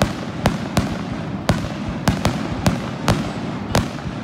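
Fireworks display: aerial shells bursting in a rapid, irregular run of sharp bangs, about ten in four seconds, over a continuous background rush.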